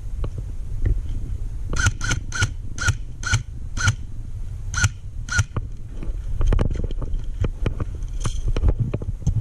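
A bird calling a quick series of about eight short, harsh, pitched notes, a few per second, then stopping. Throughout there is low wind rumble and scattered crackles of movement through brush.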